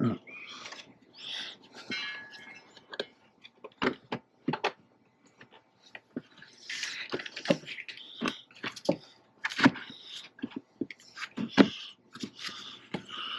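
Irregular clicks, knocks and rustling as parts, hoses and clips are handled and pushed into place during reassembly of a diesel engine's cooling system.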